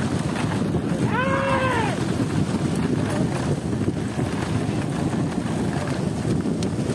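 Steady wind rumble on the microphone while moving fast behind a bullock cart pulled by two bulls along a dirt track. About a second in, one long call rises and falls in pitch.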